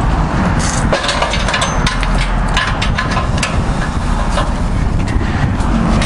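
Irregular metal knocks and scrapes of a Halligan bar's forks working at a padlock and its hasp, over the steady low rumble of a fire engine running.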